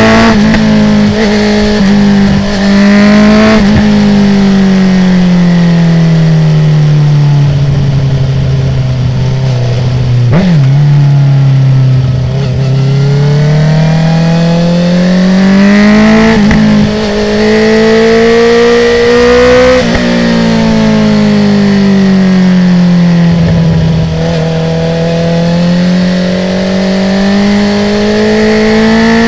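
A 2019 Honda CB650R's inline-four engine, breathing through an Akrapovic full titanium exhaust with the dB killer removed, under way on the road: the revs ease off slowly, then climb, dip and climb again as the throttle comes on and off through the bends. A few short sharp cracks are heard along the way.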